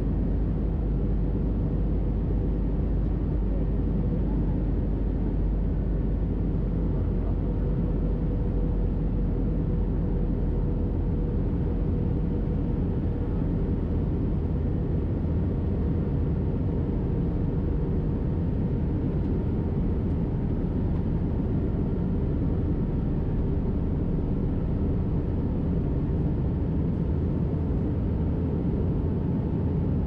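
Steady cabin noise of an Airbus A320-214 in flight, heard from a window seat: a dense, even rumble of engines and airflow. A faint steady hum sits in it and weakens about halfway through.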